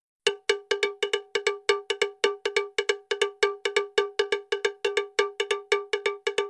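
Rapid, slightly uneven run of short metallic strikes, about four or five a second, each ringing briefly on the same note with higher overtones, like a cowbell sound effect.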